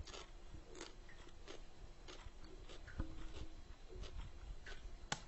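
Faint, irregular clicks and taps, about one or two a second, over a low steady hum.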